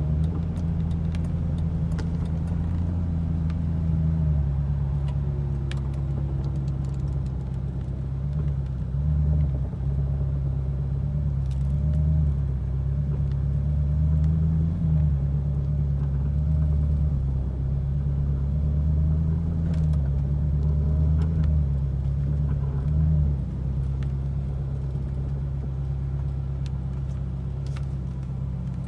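Ferrari 458 Italia's V8 engine running at low revs, its pitch rising and dipping a little now and then, with scattered sharp clicks and ticks over it. The car has a reported grinding noise when turning.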